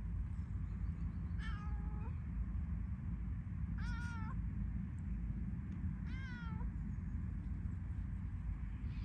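Bengal cat meowing three times, each call short and wavering in pitch, about two seconds apart, over a steady low rumble.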